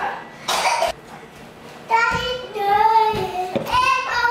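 A child singing long, drawn-out high notes, starting about two seconds in, after a short breathy hiss.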